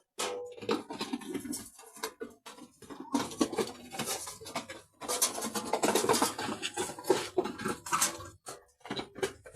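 Irregular clattering and scraping, made up of many short clicks and knocks.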